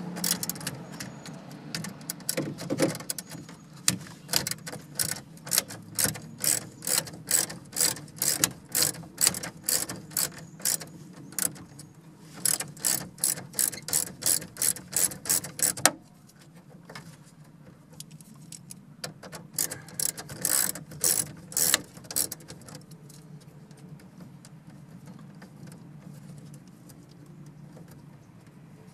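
Hand ratchet with a 9/32-inch socket clicking in quick back-and-forth strokes as it backs out the nuts holding a car stereo in the dash. The clicking runs for about fifteen seconds, stops, then comes back for a few seconds.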